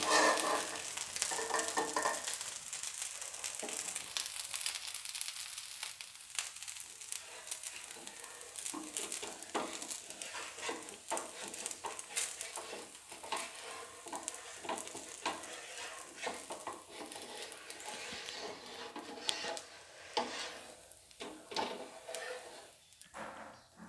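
Poha dosa sizzling and crackling on a hot tawa, a steady hiss with many small pops. Near the end a spatula scrapes under the dosa as it is folded and lifted off the pan.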